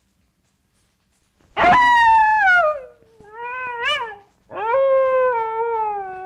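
A dog howling: after a pause, three drawn-out cries start about a second and a half in. There is a loud cry that falls in pitch, a shorter wavering one, and a long final one that slides slowly down.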